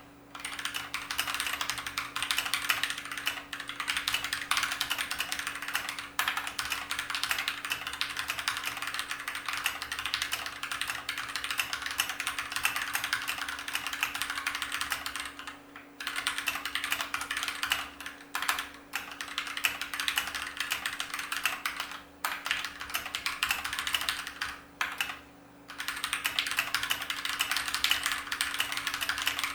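Continuous typing on an Akko 3061S 60% mechanical keyboard with factory-lubricated Gateron Orange tactile switches: a steady stream of soft key clacks, broken by a few brief pauses.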